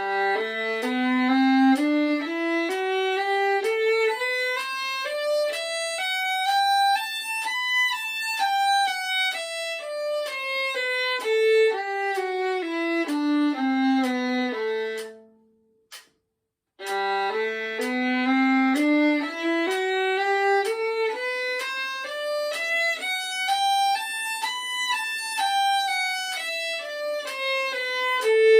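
Solo violin playing a G major scale, rising step by step and then falling back, twice over, with a short pause about halfway. The notes are slurred four to a bow before the pause and eight to a bow after it.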